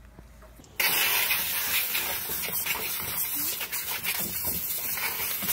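Garden hose nozzle spraying water, a steady hiss that starts abruptly about a second in.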